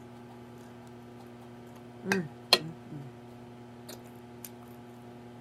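A person eating: faint chewing and utensil clicks over a steady low hum. About two seconds in comes a short voiced sound from the eater, then a sharp click, the loudest sound, and a few soft murmurs just after.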